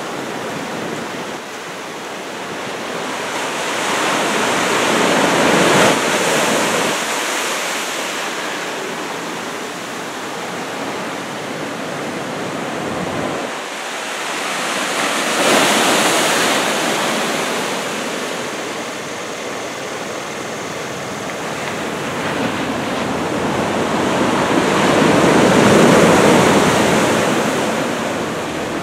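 Large typhoon-driven ocean waves breaking and washing on the shore, a constant roar of surf that swells up three times, about every ten seconds, as each set of waves breaks.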